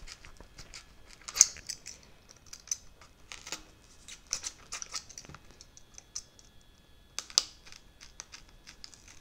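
Hobby knife blade cutting down into a foam wing: irregular short scratchy clicks and crunches as the blade is worked through the foam, with two sharper snaps about a second and a half in and about seven seconds in.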